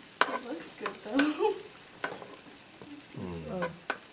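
Brain pieces frying and sizzling in a non-stick pan as they are stirred, with a metal utensil clicking and scraping against the pan several times.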